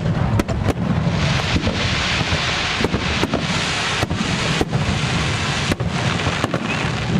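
Fireworks display: many shells bursting in quick succession, sharp bangs over a continuous low rumble, with a dense hiss from about a second in until about five seconds in.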